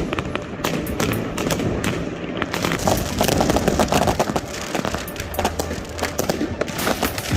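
New Year's Eve fireworks and firecrackers going off in quick succession, a dense, unbroken run of sharp bangs and crackles.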